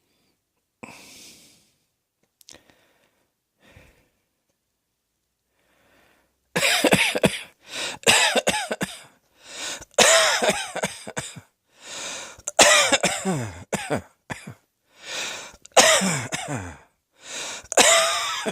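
A person coughing: a faint breath first, then about six seconds in a run of around ten loud coughs, each dropping in pitch.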